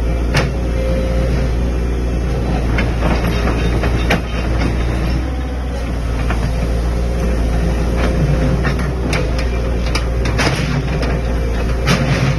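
14-ton hydraulic crawler excavator's diesel engine running steadily, with a constant whine over the engine hum and scattered clanks and knocks.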